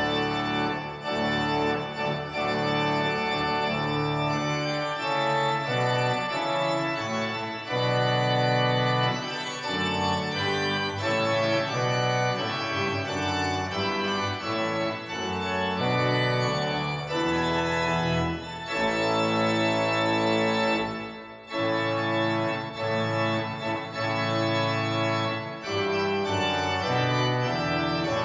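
Background music on an organ-like keyboard: held chords changing every second or so, with a short break about 21 seconds in.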